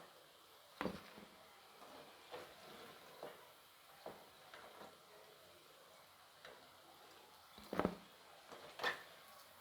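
Scattered light clicks and knocks of a kitchen utensil against a pan as fried broccoli pieces are lifted out, about six in all, the loudest near the end.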